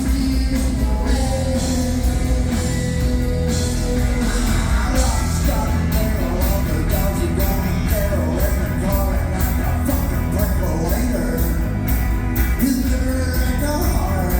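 Live rock band playing loudly, with a steady drum and cymbal beat and a voice singing over the amplified instruments.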